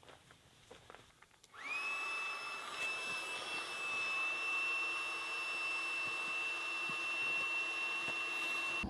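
A small electric blower motor spins up about one and a half seconds in. It runs steadily with a high whine over an airy hiss and stops suddenly at the end.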